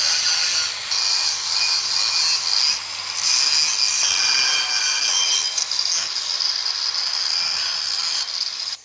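Angle grinder with an abrasive disc grinding the weld on a steel pipe joint: a loud, steady, high grinding hiss that dips briefly a few times and stops abruptly near the end.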